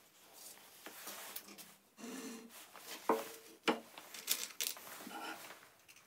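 Scattered knocks and clicks of wooden pieces and a cordless drill being handled and set down on a wooden workbench, with rustling between them.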